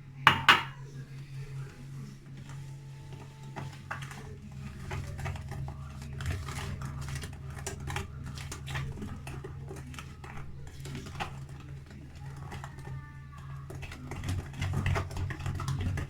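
Two sharp knocks about half a second in, then a run of light ticks and scrapes as ingredients are added and mixed into a semolina batter in a bowl, over a steady low hum.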